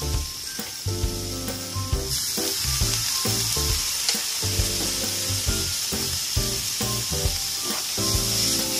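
Sliced eggplant, green peppers and king oyster mushrooms sizzling in a frying pan, the sizzle growing suddenly louder about two seconds in as a splash of sake hits the hot pan. Rhythmic background music plays throughout.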